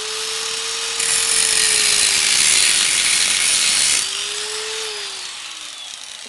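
Angle grinder running and cutting into the weld on a microwave oven transformer's laminated steel core, with a loud grinding hiss from about one second in to four seconds in. Then the disc is lifted off the metal, and the grinder is switched off and winds down, its whine falling in pitch near the end.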